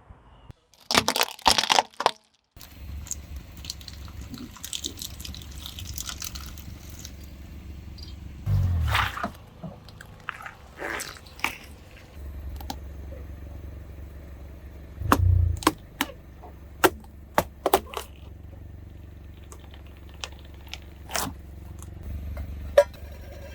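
A car rolling slowly over small objects while its engine runs low and steady. A series of sharp cracks and snaps sounds as toys and candy break under the tyres, with a couple of louder low swells from the engine and tyres.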